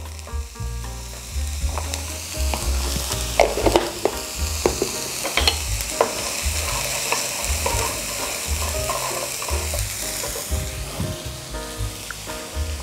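Chopped red onion dry-frying in a non-stick pan with no oil, sizzling steadily, while a wooden spatula stirs it and scrapes and taps against the pan.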